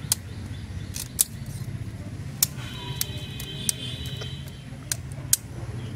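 About ten sharp, irregular clicks from a tape measure being handled against the tree trunk, over a steady low hum. A high steady tone with overtones sounds for about a second and a half, starting about three seconds in.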